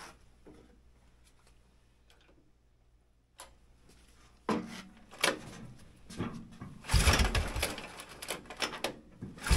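Recoil starter rope pulled on a JLO single-cylinder two-stroke snowmobile engine, which turns over without firing, once about seven seconds in and again at the very end. Before the pulls, a few clicks and rattles of handling. The engine will not catch, and the owner thinks he has flooded it.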